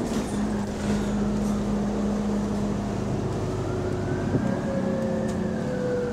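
Interior sound of a double-decker bus on the move: the engine and cooling fan make a steady drone, with a whine that rises and then falls in pitch.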